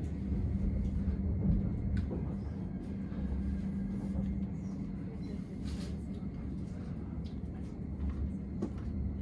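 Bernina Express panoramic train running, heard inside the carriage as a steady low rumble and hum, with a few faint clicks and knocks.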